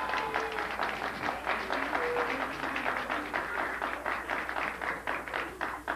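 Crowd of children applauding at the end of a song, with a few voices calling out; the clapping dies away near the end.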